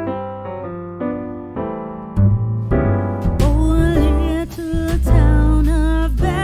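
Background music: a piano playing alone, then about two seconds in a fuller band with a deep bass joins and a singing voice comes in over it.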